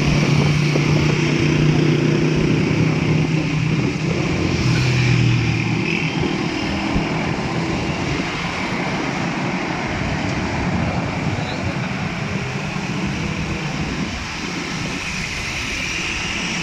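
Motorcycle engine running while riding along a road, with wind noise on the microphone. The engine's steady note is clearest for the first six seconds or so, after which rushing road and wind noise take over.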